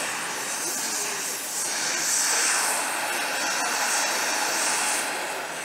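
MIG welding arc on aluminum angle, a steady hiss from the wire-feed gun that eases off just before the end as the weld stops.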